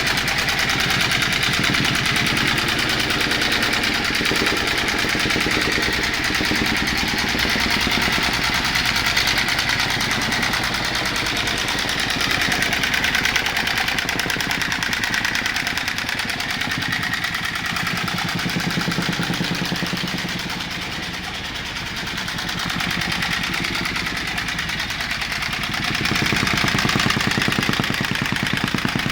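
Engine-driven construction machinery running steadily with a fast, even chattering pulse, dipping a little in level about three-quarters of the way through.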